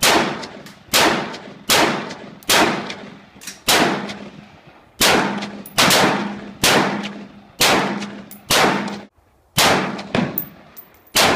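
AR-15 rifle firing 5.56 rounds in steady semi-automatic succession: about a dozen shots, roughly one a second, each followed by a ringing, echoing decay.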